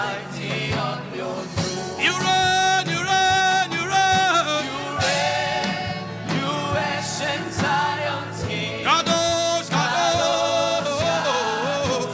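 Gospel worship music: a voice sings long, wavering held notes over a steady instrumental backing with a regular beat.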